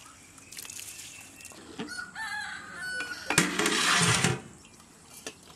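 A rooster crows and chickens cluck. About three and a half seconds in, a large metal lid is put on the cooking pot with a loud clatter lasting about a second.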